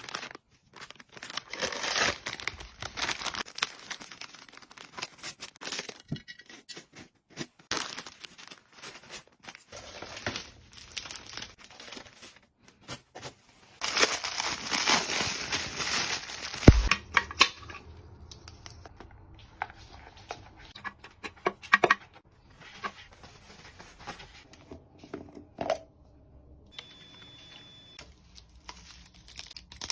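Packaging being handled and unwrapped: crinkling and rustling with many small clicks and knocks of items being moved. About halfway through comes a louder stretch of tearing that ends in a dull thump, and near the end a brief high tone.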